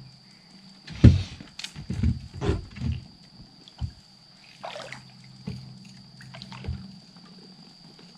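A hooked bass thrashing at the surface beside a fishing boat as it is landed by hand: several sharp splashes and knocks in the first three seconds, the loudest about a second in, with a few more later. A steady low hum runs underneath and stops about two-thirds of the way through.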